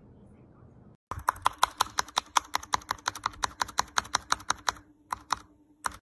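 Mechanical keyboard keys being typed: a quick run of sharp clacks, about five or six a second, starting suddenly about a second in and thinning to a few single key presses near the end.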